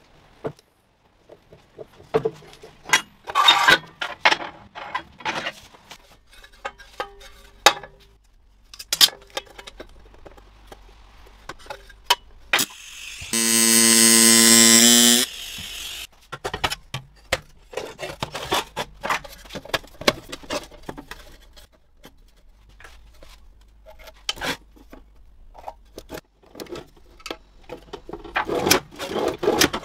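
Workshop metalwork: scattered metal clicks, knocks and rattles from handling and folding stainless sheet parts, with a TIG welding arc buzzing steadily for about two seconds in the middle as the loudest sound. Near the end there are more light metallic clicks as a metal drawer slide is fitted.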